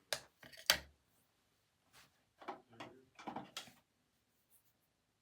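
Two sharp clicks or knocks about half a second apart, then a cluster of softer handling noises and knocks a couple of seconds later, like small objects being picked up and set down.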